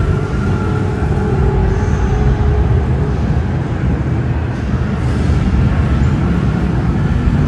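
Steady low rumble of car engines running.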